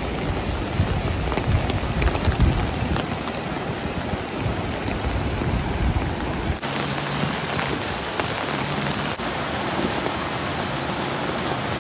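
Rushing water of a stream swollen by heavy rain, running fast and white over rocks. About six and a half seconds in it changes abruptly to water pouring over a curved stone spillway and crashing into a churning pool below.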